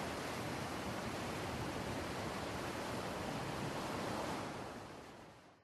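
Steady wash of sea or surf noise that fades out near the end.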